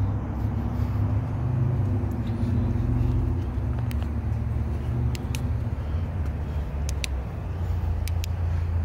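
A car running: a steady low engine and road rumble, with a faint hum over it in the first few seconds and a few small sharp clicks later on.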